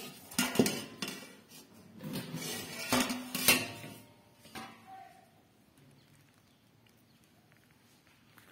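Steel plate and steel bowl knocking together as the plate is set over the bowl as a lid. Several sharp metal clinks and scrapes: a pair about half a second in, a cluster from about two to three and a half seconds, and a last one a second later.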